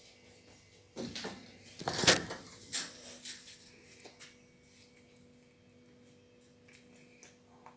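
A few brief rustles and knocks in the first few seconds, the loudest about two seconds in, then a quiet room with a faint steady hum.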